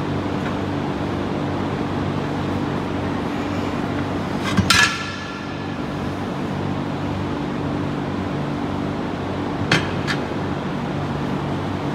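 Steel tire irons clanking against a heavy-duty truck wheel rim while prying the tire bead: one loud ringing metal strike about five seconds in and two lighter clinks about ten seconds in, over a steady low hum.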